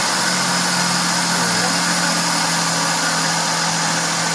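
Suzuki Celerio's small petrol engine idling steadily just after being started, with a constant even hum heard under the hood.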